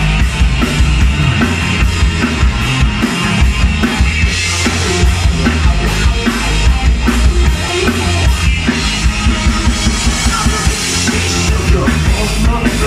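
Rock band playing live and loud: drum kit with bass drum and snare, bass guitar and electric guitar.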